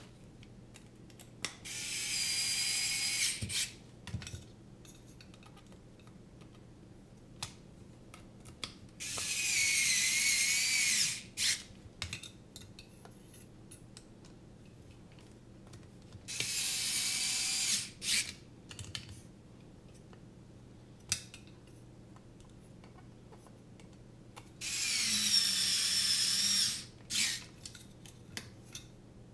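Small electric screwdriver driving screws into a drone frame's standoffs in four short bursts of high whirring, each lasting a second or two, with small clicks of handling between the bursts.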